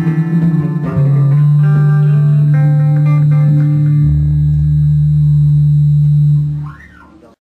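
Acoustic guitars playing together. About a second in they settle on a long held chord that rings steadily, with a deep low note joining partway through. Near the end it dies away quickly and cuts off.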